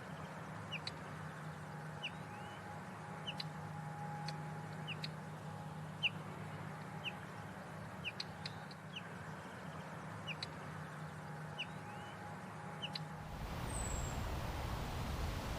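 A bird giving short, sharp chirps, roughly one a second, over a steady low hum. About thirteen seconds in, the sound cuts to a noisier recording with a high, falling whistle.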